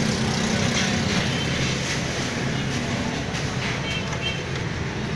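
Steady machinery rumble with a broad hiss, with a few faint high chirps about four seconds in.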